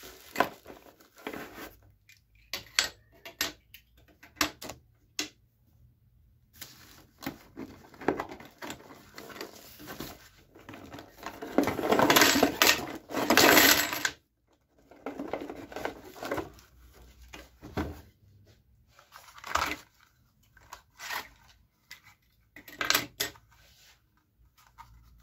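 Cardboard packaging being handled and rummaged through, with loose metal staple strips clicking and clattering as they drop onto the table; a louder stretch of rustling and scraping comes about halfway through.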